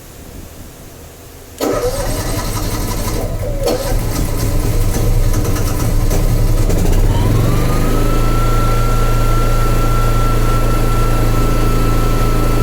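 Honda EU7000is inverter generator engine starting. It comes in suddenly about a second and a half in, runs unevenly with wavering pitch, then settles from about seven seconds in into steady running with a whine that rises and holds. The uploader reports this hard start at every start, despite a new battery and spark plug, fresh oil and stabilised fuel.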